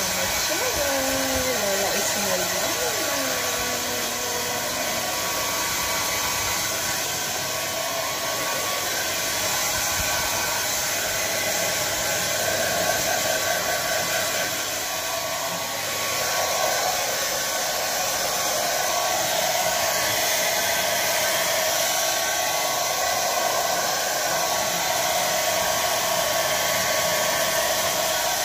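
Handheld electric hair dryer running steadily with a thin steady whine in its rush of air, blowing on a small dog's fur.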